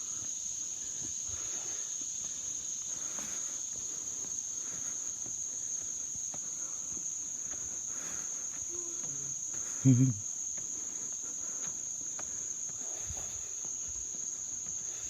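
Steady, unbroken high-pitched insect chorus, one shrill drone that holds level throughout. A short, loud low sound breaks in once about ten seconds in.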